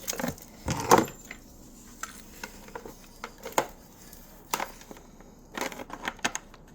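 Irregular clicks and light knocks of hard parts being handled, with the loudest about a second in and a quick cluster near the end, as the e-bike's connectors and charger are worked on.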